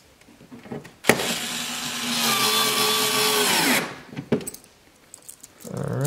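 Cordless drill-driver running a screw into the wheel-well liner for about three seconds, its whine dropping in pitch as it stops. A click follows, and near the end the motor briefly spins up again.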